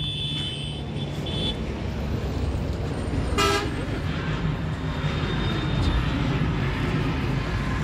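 Steady low rumble of idling vehicle engines and traffic, with horns tooting: a high held horn tone for the first second and a half, then a short blast about three and a half seconds in.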